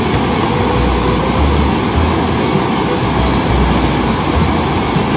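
Steady rushing of water, with an uneven low rumble underneath.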